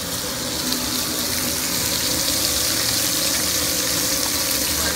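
Skin-on chicken legs sizzling as they sear in hot oil in a large skillet, the browning step of a braise: a steady hiss with a few small crackles.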